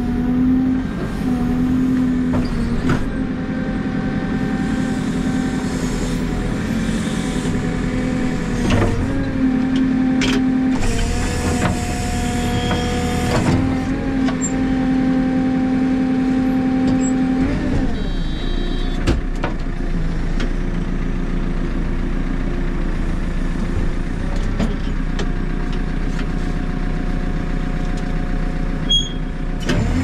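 Backhoe loader's diesel engine running, its pitch shifting up and down several times, with knocks and rattles over it.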